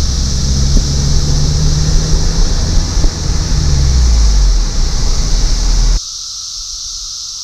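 Chorus of periodical cicadas, a steady high drone, under a heavy low rumble that cuts off suddenly about six seconds in, leaving the cicadas alone.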